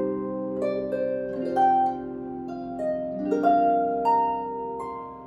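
Solo lever harp played by hand: a slow melody of plucked strings, each note ringing on and overlapping the next over held lower notes.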